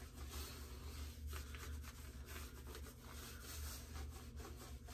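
Faint rubbing of hands working shaving-soap lather over a wet scalp, with a steady low hum underneath.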